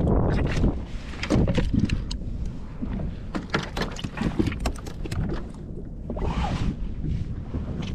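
Handling noise on a plastic kayak deck: a run of clicks and knocks as fishing gear is moved and a caught fish is unhooked with pliers, over a low rumble of wind on the microphone. A short rushing sound comes about six seconds in.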